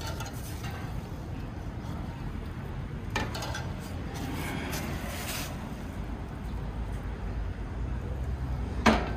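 Steel wood stove's hinged top plate and lid being handled: a metal click about three seconds in and a sharper metal clank near the end, over a steady low rumble.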